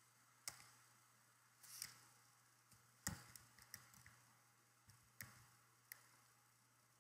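A few faint, scattered clicks of a computer keyboard and mouse, about seven in all at irregular intervals, against near silence.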